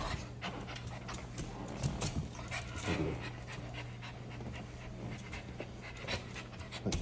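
A small bully-breed dog panting, with scattered light clicks and a steady low hum underneath.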